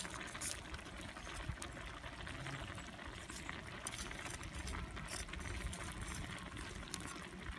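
A pot simmering over a campfire, bubbling steadily with many small pops and crackles.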